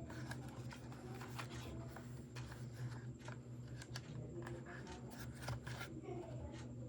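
Hands handling the packaging and plastic parts of a toy RC car, making scattered light clicks and rustles over a steady low hum.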